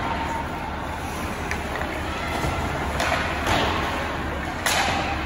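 Ice hockey play: skates scraping the ice in short bursts, with a few knocks and a sharp thud near the end.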